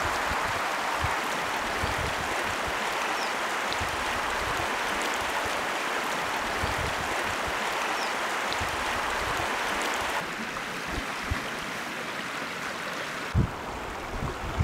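Shallow mountain river rushing steadily over stones, with occasional low thumps; the water sound drops off about ten seconds in.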